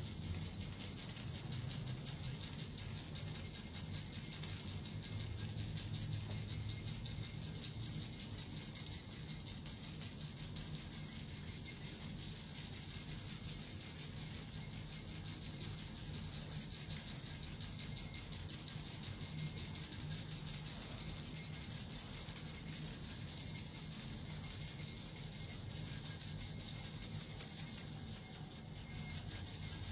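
Small jingling bells shaken without pause, giving a dense, steady shimmer of tinkling for a shamanic healing session.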